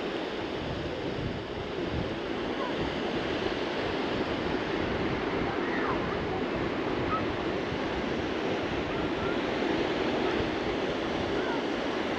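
Surf washing on a sandy beach with wind buffeting the microphone: a steady, even rushing.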